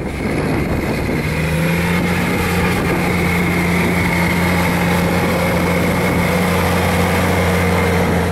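Versatile 280 tractor's diesel engine running steadily as it pulls a Houle manure tanker, with a constant low engine hum that firms up about a second in.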